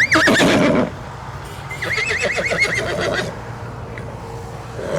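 Horse neighing: a loud, short neigh right at the start, then a longer quavering whinny about two seconds in, and a third neigh beginning at the very end.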